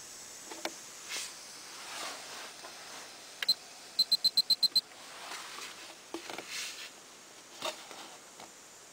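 A quick run of about eight short, high electronic beeps, about ten a second, from an in-car control panel, starting about four seconds in and coming just after two clicks. Soft handling rustles and clicks come before and after.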